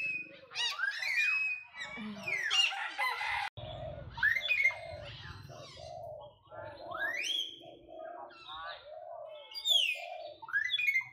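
Animal calls: several high, sharply rising squeals, with a lower call repeated about twice a second from about a third of the way in.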